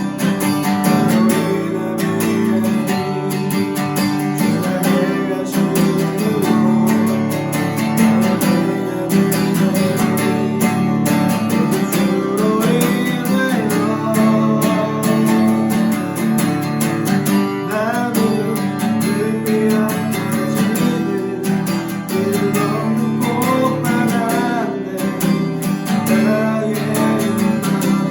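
Acoustic guitar strummed steadily as worship-song accompaniment, with a gliding melody line over it in places.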